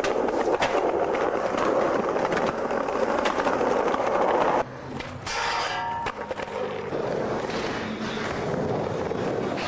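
Skateboard wheels rolling loud and steady on pavement, with small clicks and knocks from the board. After a sudden cut about four and a half seconds in, there is a brief pitched screech as the trucks grind a metal rail, then quieter rolling.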